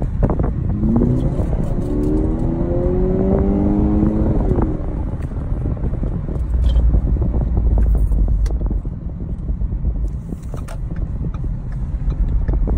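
Car engine heard from inside the cabin under hard acceleration: its note rises steadily for about four seconds, drops at a gear change, then carries on as a dense engine and road rumble as the car keeps gaining speed.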